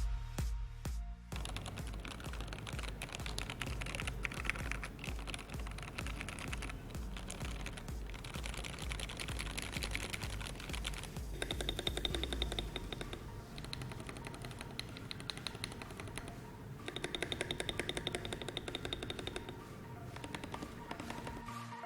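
Keys of an FL-Esports CMK68SAM mechanical keyboard with Kailh Box Cool Mint switches being typed and pressed, including the stabilized keys. The clicking is dense, with two runs of very fast, even clicks partway through, over background electronic music.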